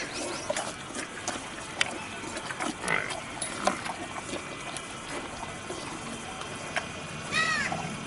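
Young water buffalo feeding with its head inside a plastic drum: irregular clicks and knocks of its muzzle and the feed against the drum. A short high arched call sounds near the end.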